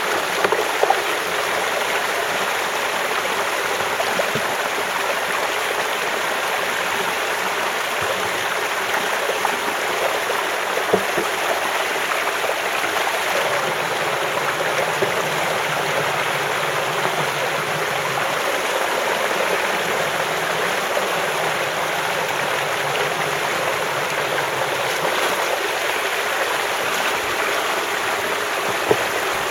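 Creek water rushing steadily through and over a cinder-block dam, with a couple of faint knocks.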